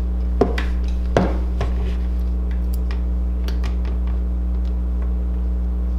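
A steel hemostat being clamped onto a doll's restringing elastic at the ferrule: sharp metal clicks, two louder ones about half a second and a little over a second in, then lighter ticks as it is handled and locked. A steady low hum runs underneath.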